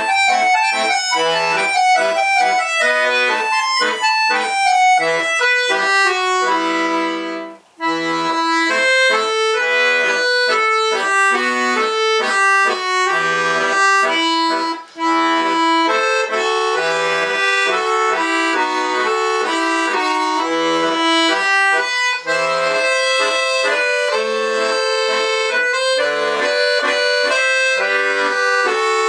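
Solo bayan (Russian chromatic button accordion) playing a folk-style piece, with a melody over bass and chords. There is a brief break in the playing about seven and a half seconds in, and shorter pauses at about 15 and 22 seconds.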